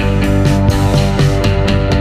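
Background music: rock-style music with guitar and drums keeping a steady beat.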